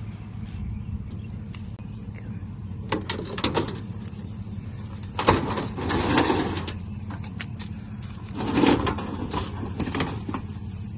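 Idling vehicle engine with a steady low hum, overlaid by several clanks and scrapes as scrap from a broken washer is handled. The loudest bursts come about five to six seconds in and again near nine seconds.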